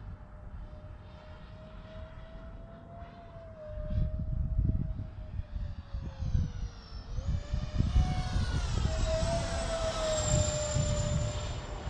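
Twin 70 mm electric ducted fans of a radio-controlled F-22 model jet whining in flight. The pitch wavers, then rises and grows louder from about seven seconds in as the jet comes closer. A gusty low rumble sounds underneath from about four seconds in.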